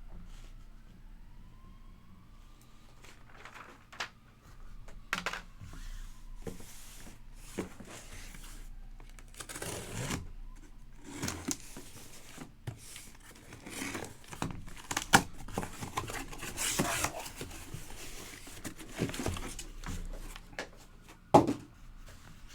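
Sealed card boxes being unpacked by hand: plastic wrap and cardboard rustle, tear and crinkle in irregular bursts, with a few sharp knocks as the boxes are handled, the sharpest about 15 and 21 seconds in.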